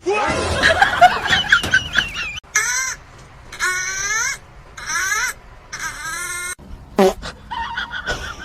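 An animal's calls: a jumble of cries, then four similar drawn-out calls about a second apart, each bending up and down in pitch, then a few shorter sounds near the end.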